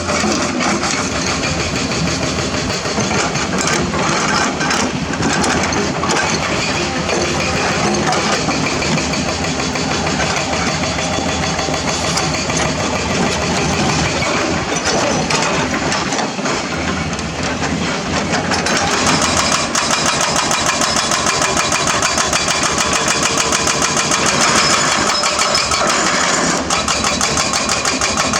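Hydraulic excavator's diesel engine running steadily. About two-thirds of the way through it grows louder, with a fast, even rattle.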